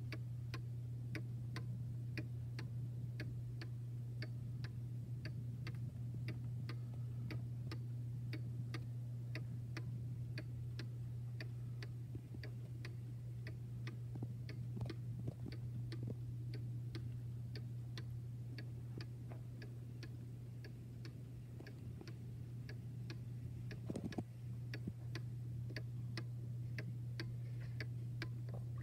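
Antique German cuckoo clock's weight-driven pendulum movement ticking, an even tick-tock, over a steady low hum.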